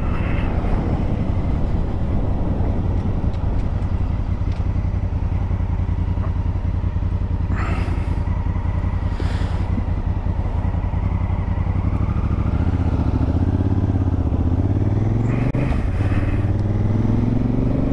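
Honda Africa Twin CRF1000L's parallel-twin engine running under way, heard from the rider's helmet microphone. About two-thirds in the engine pitch rises as the bike accelerates, dips briefly at a gear change, then rises again.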